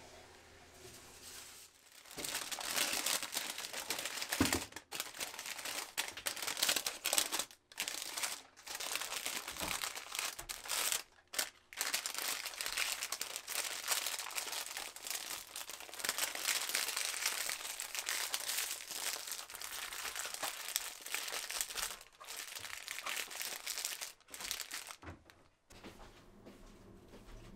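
Parchment paper crinkling and rustling as it is folded and wrapped tightly around a sandwich, a long run of crackling broken by a few brief pauses.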